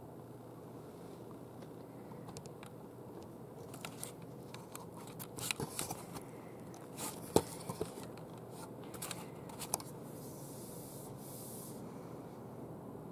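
Scattered small clicks, scrapes and rubbing as a tabby cat moves about inside a green egg-shaped chair close to the microphone, with one sharp tap about halfway through and a short soft hissing rustle near the end.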